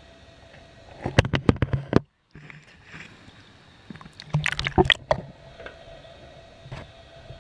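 Water splashing and sloshing around a handheld camera moving at and just under the water's surface, in two bursts of quick splashes: about a second in, and again around four and a half seconds in.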